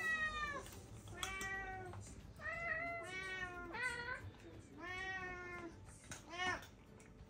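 Domestic cat meowing again and again, about six drawn-out meows with short gaps between them and a brief one near the end, while begging for a treat from a hand.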